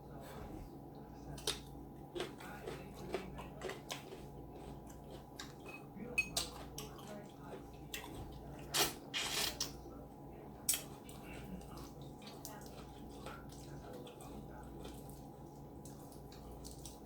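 Close-up eating sounds of a seafood boil: scattered clicks, crackles and wet smacks from handling and eating saucy shellfish, with a louder, longer noisy sound about nine seconds in.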